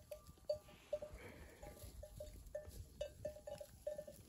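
Bells on a grazing flock of sheep clinking faintly and irregularly.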